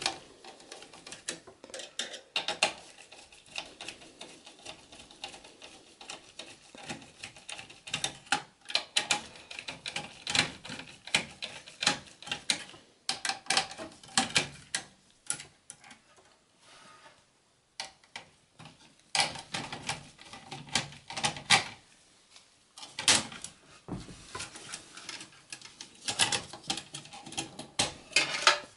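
Irregular small clicks and light metal taps from a Torx T15 screwdriver loosening the CPU heatsink screws inside a desktop PC case, coming in clusters with a couple of short pauses.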